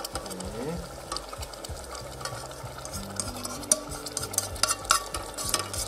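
Sliced mushrooms and bell peppers sizzling in a metal pan as a thick sauce is poured and scraped in from a metal saucepan. There is stirring and scraping, with many sharp metal-on-metal clicks and taps, loudest about four to five seconds in.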